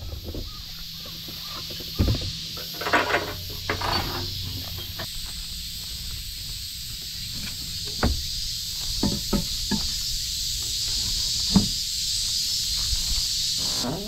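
Handling noise from a homemade truck camper shell's rear door and hatch being opened: a scattering of sharp knocks and short rattles, over a steady high hiss.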